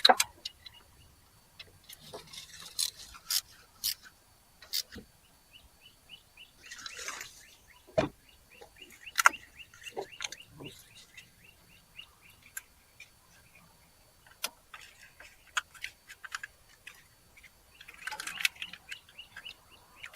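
Birds chirping, including a long run of quick, evenly spaced high chirps, over scattered sharp clicks and knocks, the loudest knock right at the start, with two short hissing sounds.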